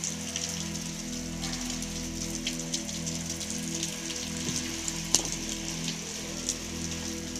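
Rain falling steadily on a paved yard, with scattered sharp clicks of small hailstones striking; one click just after five seconds stands out as the loudest.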